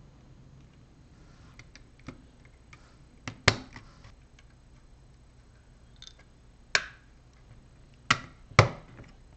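LEGO plastic bricks clicking and snapping together as a model is pressed together by hand: several sharp clicks at irregular spacing, the loudest a pair about three and a half seconds in.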